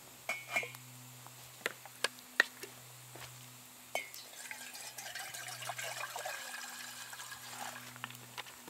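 Metal kettle set down on a titanium wood-burning hobo stove with a few sharp clinks. About four seconds in, a crackling hiss of water and steam starts on the hot kettle and fire, then fades near the end.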